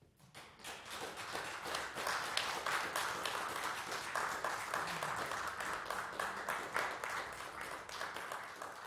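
Applause from a small audience: many hands clapping, building up over the first second and then holding steady.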